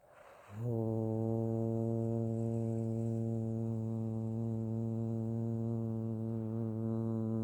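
A voice toning light language: a short inhale, then one long, low, steady sung note starting about half a second in.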